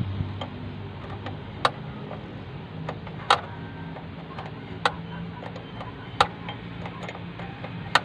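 A steel wrench clinking on a bolt as it is turned and refitted a bit at a time: five sharp metal clicks about a second and a half apart, with fainter ticks between. A low hum runs underneath.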